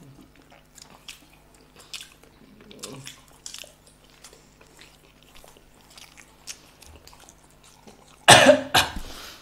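People chewing masala-coated hard-boiled eggs: soft, scattered wet mouth clicks and smacks. A loud cough comes about a second before the end.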